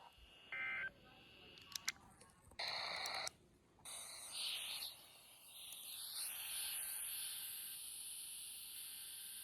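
Weather radio receiver between broadcasts: a few clicks, a short beep and a brief burst of noise. About four seconds in, a steady radio static hiss begins, with faint wavering whistles in it.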